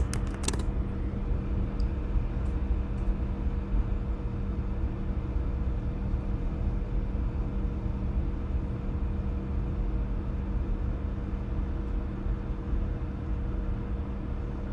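A few keyboard keystrokes in the first half-second, then a steady machine hum: a low rumble with a held low drone and a fainter higher tone that does not change.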